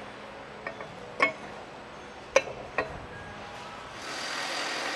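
Light metal clinks and ticks, about five, as the rotating half of a pump's mechanical seal is slid along the lubricated steel shaft and knocks against it. The loudest is a little after the middle; a steady background noise comes up near the end.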